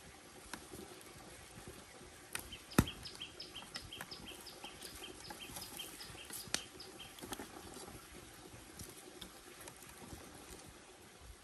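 Split-bamboo tongs clicking and knocking against the wooden sticks of a grill rack as fish are turned over a fire, with one sharp knock about three seconds in. A rapid run of short high chirps, about four a second, sounds in the background through the middle.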